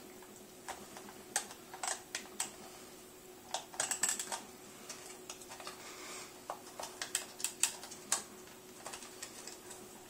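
Small screwdriver prying at the snap tabs of a plastic dishwasher control-board housing: irregular sharp plastic clicks, some in quick clusters.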